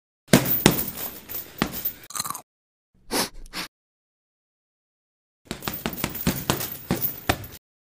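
A cat's claws and paws scratching and tapping at cardboard flaps and walls: three bursts of rapid scratchy clicks, two of about two seconds and a short one in the middle, with dead silence between.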